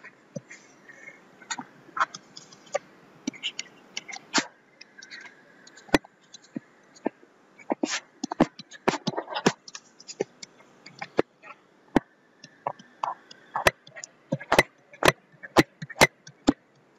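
Pen stylus tapping and scraping on a tablet screen while drawing graph axes, tick marks and numbers: irregular sharp clicks, coming at a steadier pace of about two a second near the end.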